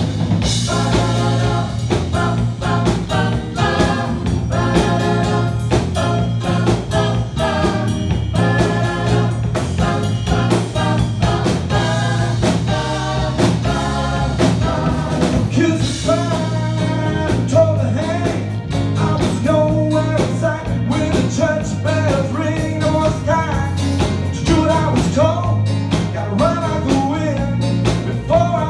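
Live band playing a yacht-rock song: a woman singing lead over electric guitar, bass guitar, keyboards and a drum kit.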